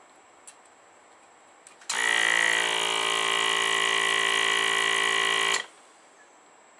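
The vacuum pump of a home-built desoldering station switches on and buzzes steadily for about three and a half seconds, sucking up the melted solder, then cuts off abruptly. A couple of faint clicks come before it starts.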